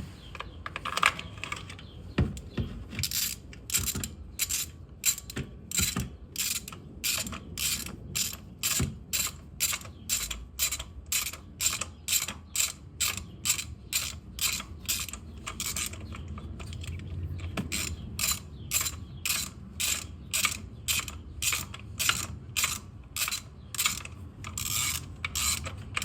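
Ratchet wrench with a 5/8 spark plug socket clicking in a steady rhythm, about two clicks a second, as it is swung back and forth to screw a new spark plug into the engine.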